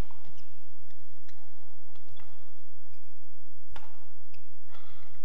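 Badminton rally: racket strings striking a shuttlecock, with one sharp crack of a hit about four seconds in and lighter hits before it, and short squeaks of court shoes on the synthetic floor, over a steady low hum.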